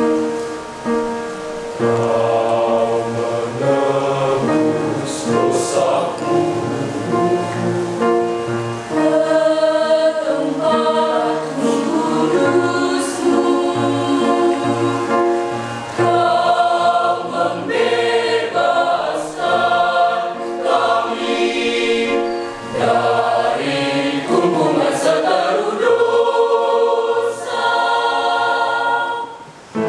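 Mixed-voice youth choir singing in several parts, holding chords that shift from phrase to phrase; the sound falls away just before the end.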